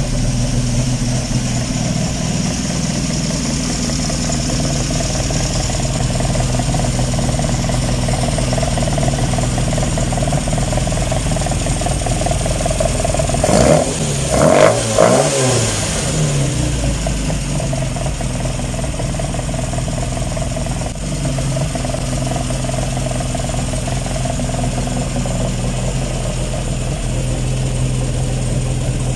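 Austin-Healey 'Frogeye' Sprite's four-cylinder engine idling steadily, blipped by hand at the carburettor throttle linkage a few times about halfway through, its pitch rising and falling, then settling back to idle.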